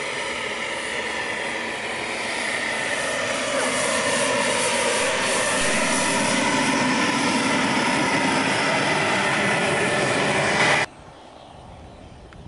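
Small gas turbine engine of a radio-controlled F-106 Delta Dart model jet running, a steady whine over rushing jet noise that grows louder over the first few seconds. It cuts off abruptly about eleven seconds in to a much quieter background.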